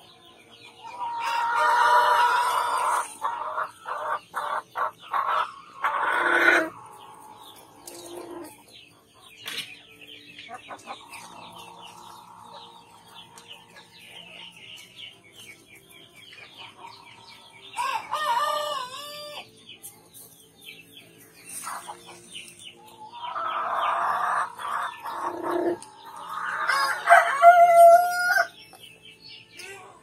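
Heritage-breed free-range chickens in their pen: a rooster crowing and hens clucking and squawking. The loud calls come about a second in, again around the middle, and in a long stretch near the end, with fainter clucks and small bird chirps between.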